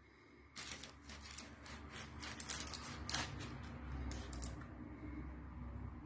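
Kitchen utensils clicking and scraping in quick, irregular strokes, starting about half a second in and stopping after about four seconds.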